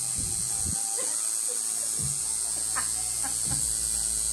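Electric tattoo machine buzzing steadily.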